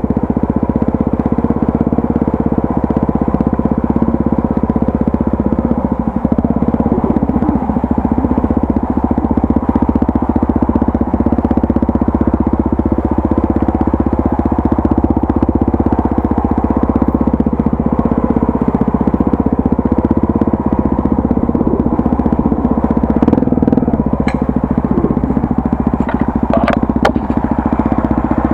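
Honda Tornado 250's single-cylinder four-stroke engine running at a steady speed while the motorcycle is ridden, with a few sharp clicks near the end.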